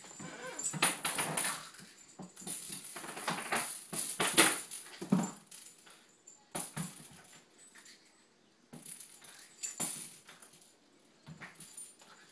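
A Cairn Terrier playing with a cat toy: irregular bouts of clattering and rattling as the toy is batted and pounced on, with a couple of short quiet pauses between bouts.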